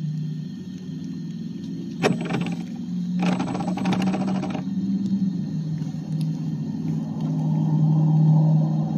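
Radio-controlled truck's motor and gears droning low and steady, with two short bursts of splashing and scraping in wet grass and water about two and three and a half seconds in.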